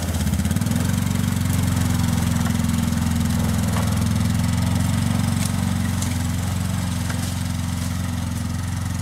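Side-by-side utility vehicle's engine running steadily at low speed as it drives off, getting a little quieter near the end.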